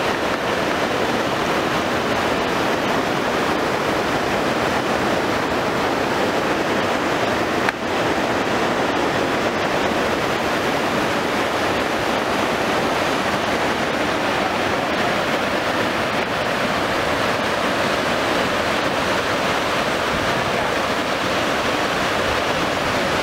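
Fast mountain river rushing over boulders: a steady, even rush of white water, with a brief dip about eight seconds in.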